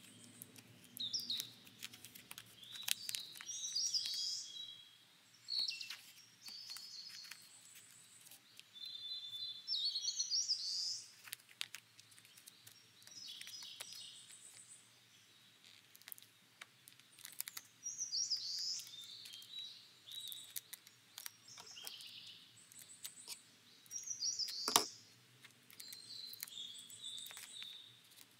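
Small birds chirping in short, repeated phrases every few seconds. Scattered light clicks and crinkles come from hands handling a clear-tape-wrapped paper squishy, the sharpest about 25 seconds in.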